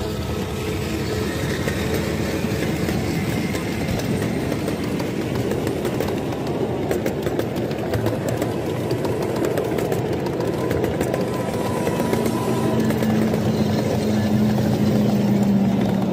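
Ride-on scale model trains rolling close past: a continuous rumble of small steel wheels on the rails, with scattered clicks over rail joints. A steady hum from an approaching locomotive grows louder over the last few seconds.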